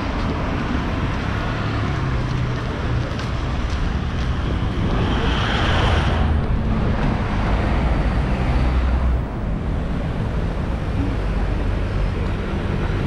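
City street traffic: cars and scooters running along the road, with one vehicle passing close about five to six seconds in.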